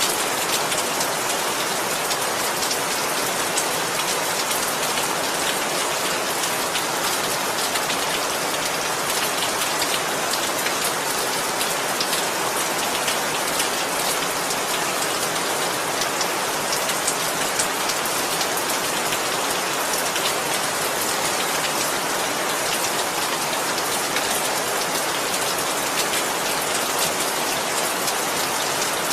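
Steady rain falling on a surface, an even hiss with many fine drop ticks.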